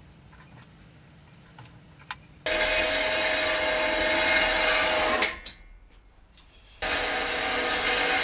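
An electric power tool running twice: a loud, steady whirring with a constant whine for about two and a half seconds, then, after a short pause, again for about two seconds, each run starting suddenly and winding down when switched off.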